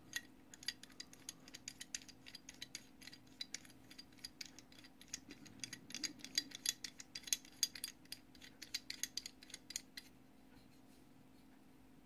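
Small metallic clicks and ticks as an aluminum adjustment knob is turned by hand onto the stainless threaded bolt of a Dillon XL650 powder bar, in quick irregular runs that stop about ten seconds in. A faint steady hum lies underneath.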